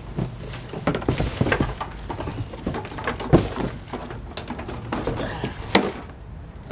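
Handling noise from a push mower being lifted out of its cardboard shipping box and set down: cardboard scraping and rustling with irregular plastic-and-metal knocks, a sharp knock about halfway through and another near the end.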